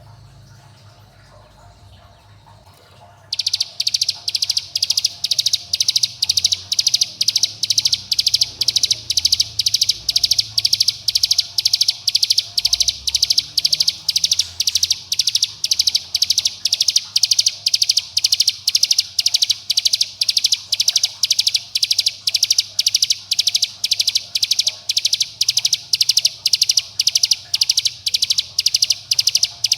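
Ciblek gunung (a prinia) giving its rapid 'bren' call: a loud, very even train of sharp high chips, about two to three a second, starting about three seconds in. It is the contact and challenge call used as a lure to set other ciblek gunung calling.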